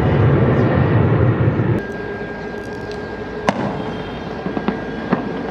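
Jet engines of a Boeing 777-200ER rumbling low as the airliner rolls out after landing. The rumble cuts off abruptly about two seconds in, leaving a quieter steady background. Three sharp cracks follow in the second half.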